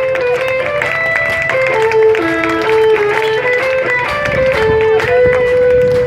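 Background music: a guitar playing a melody of short held notes that step up and down in pitch.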